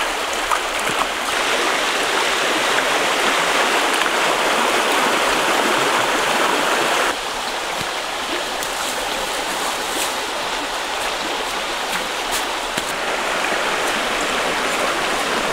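Stream water flowing, a steady rushing. About seven seconds in it drops slightly and turns duller.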